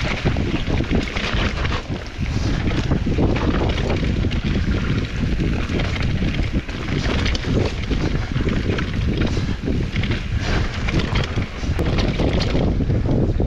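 Wind buffeting a helmet- or body-mounted action-camera microphone during a fast mountain-bike descent, with the tyres rumbling over the dirt trail and the bike knocking over bumps throughout.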